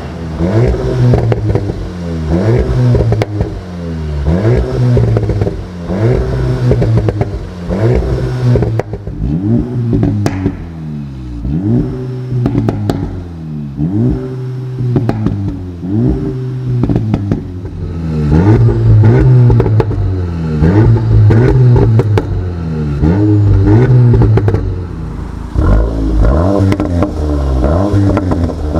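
A VW 2.0-litre turbocharged four-cylinder exhaust, revved again and again, rising, holding briefly and falling about every two seconds, with crackles and pops as the revs drop.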